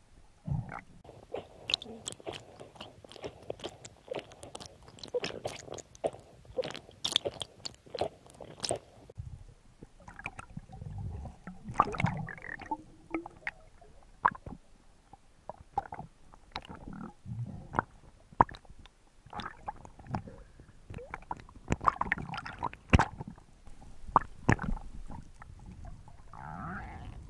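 Underwater handling noise heard through an action camera's waterproof housing: irregular sharp clicks and knocks from the diver's hands and gear, with low rumbles in between.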